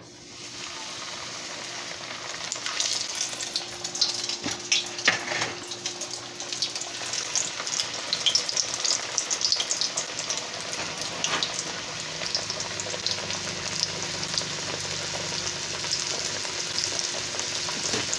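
Cornmeal-coated catfish fillets frying in hot oil: a steady sizzle full of sharp crackles and pops, starting as the fish goes into the oil.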